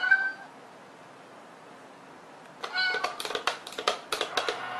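A short meow just as it begins and another about two and a half seconds in, followed by a quick run of sharp clicks and taps from the toy cat coin-bank box the cat is pawing, lasting about a second and a half.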